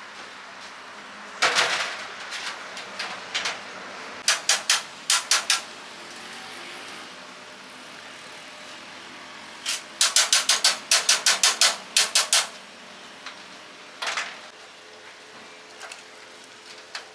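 Sharp, loud knocks in irregular groups, with a fast run of about ten strikes a little past the middle, over a steady background hiss.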